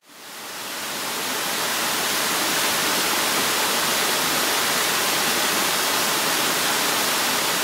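Waterfall rushing steadily, its flow swollen by heavy rain. The sound fades in from silence over the first second or so, then holds even.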